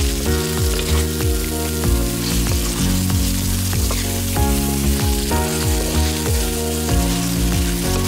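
Green chilli chicken curry sizzling in a pan as it is stirred, with a hiss of frying throughout. Background music with a steady beat plays over it.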